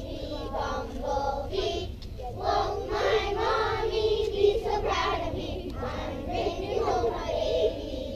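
A group of young children singing together, in sustained phrases.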